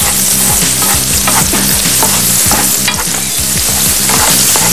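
Chopped garlic and onion sizzling in hot olive oil in a frying pan, stirred and scraped around with a wooden spatula in repeated strokes.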